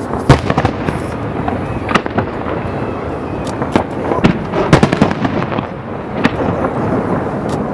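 Aerial firework shells launching and bursting: a rapid, irregular run of sharp booms and cracks over a continuous rumble, loudest near the start, about two seconds in, and near the middle.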